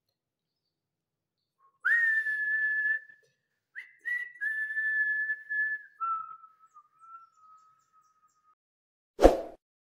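A person whistling three long held notes, the last one lower and slightly wavering. A single sharp click or knock follows near the end.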